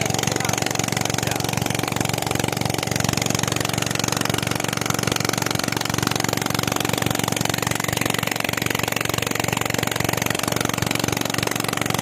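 Small petrol engine driving a centrifugal water pump on a tubewell, running steadily at constant speed with a rapid even firing beat, while water gushes from the outlet pipe into a channel.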